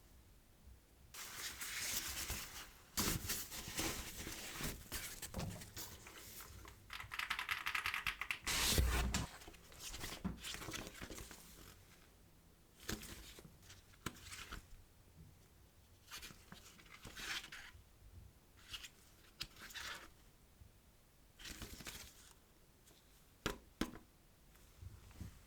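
Keyboard packaging being torn open and handled: irregular tearing and crinkling of wrapping, with a long rasping tear and a thump about nine seconds in, then scattered rustles and taps.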